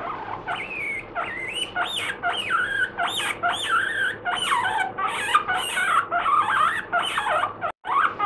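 Abyssinian guinea pig giving a long, warbling 'kyuiiin' squeal, sliding quickly up and down in pitch, with a brief break near the end. The owner puts it down to the guinea pig's dislike of being brushed.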